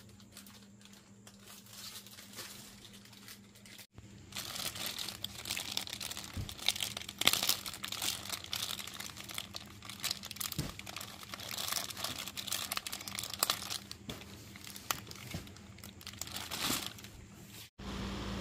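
Crinkling and rustling of something being handled: faint for the first few seconds, then after an abrupt cut dense crackling with sharp peaks, stopping abruptly shortly before the end.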